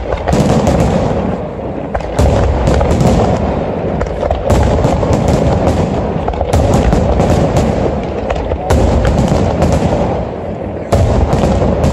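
Aerial firework shells bursting in a dense volley, with heavy booms about every two seconds and many sharp cracks between them.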